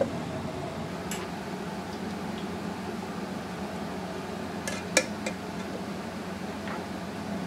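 Steel tongs clinking against a stainless steel bowl as net-tied blocks of boiled pork are lifted out of a wok of broth, over a steady kitchen hum. One faint clink comes about a second in, then three sharp ringing clinks in quick succession around five seconds in, the middle one loudest.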